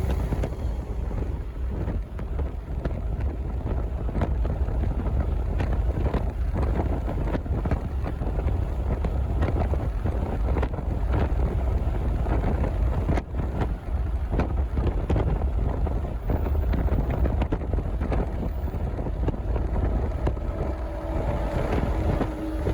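Wind blowing across the microphone: a heavy low rumble that rises and falls in uneven gusts.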